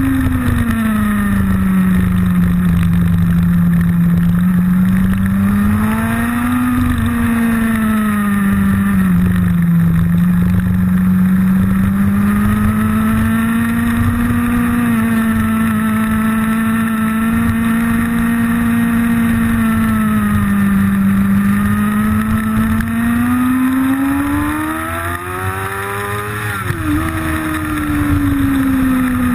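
Motorcycle engine heard from an onboard camera, its pitch rising and falling with the throttle through the bends. It climbs twice, and near the end the pitch drops suddenly. Wind rumble on the microphone runs underneath.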